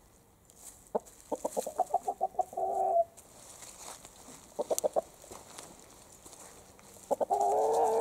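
Rooster clucking. About a second in, a run of short clucks speeds up and ends in a drawn-out note; four short clucks follow near the middle; near the end another run ends in a longer, wavering note.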